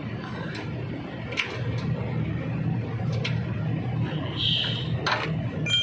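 Sharp metallic clicks and knocks of hand work on metal parts over a low steady hum, ending in a single ringing metal clink.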